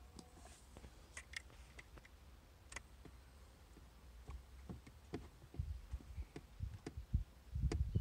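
Faint handling noise: scattered light clicks, then low thumps that grow louder toward the end, from a hand working around the car head unit and its trim.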